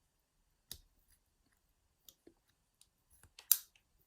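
Lock pick and nail tension tool clicking and scraping inside an ERA five-lever padlock as the levers are lifted. A few scattered, sparse clicks, the loudest near the end.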